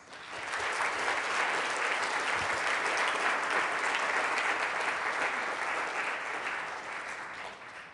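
Audience applauding at the end of a talk: a steady run of many hands clapping that builds quickly, holds, then fades out near the end.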